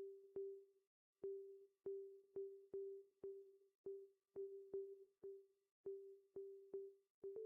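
Quiet background music: one plucked or mallet-struck note repeated about twice a second in an uneven rhythm, each note dying away quickly.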